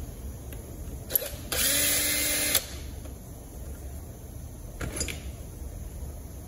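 Cordless drill-driver running for about a second, its pitch rising briefly as it spins up, backing out the single T27 Torx screw that holds the valve cover down. A click comes just before it, and a faint short handling sound comes near the end.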